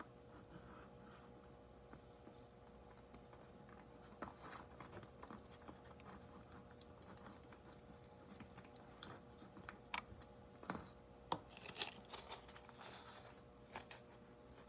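Near silence with faint scattered clicks, crinkles and rubbing from hands handling painter's tape and a rubber balloon, including a few sharper clicks about ten to twelve seconds in. A faint steady hum runs underneath.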